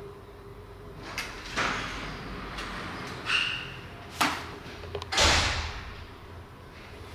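A few separate knocks and short rushing, scraping noises of things being handled in a room, with a sharp click just after four seconds and the loudest, a rushing thump, about five seconds in.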